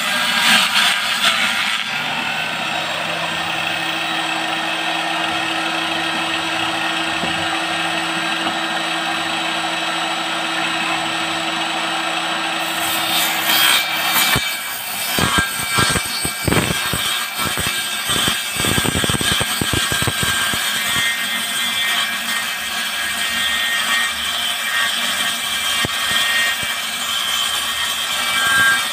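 Table saw built into a wooden bench, its circular blade running and ripping a sheet of board. It hums steadily at first, and from about halfway it turns rough and uneven as the sheet is pushed through the blade.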